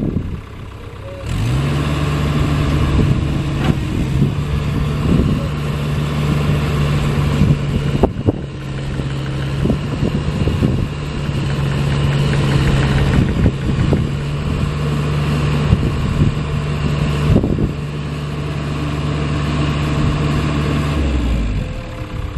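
Cat excavator diesel engine running. Its speed picks up about a second in, holds steady with a few scattered knocks, and drops back near the end.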